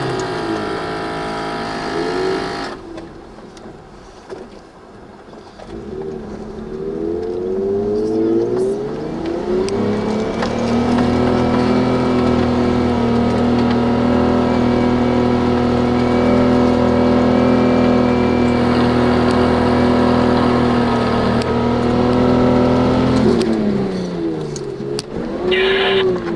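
Four-wheel drive's engine working through fresh snow: the revs rise and fall several times, then hold a high steady note under load for about twelve seconds before dropping and climbing again near the end.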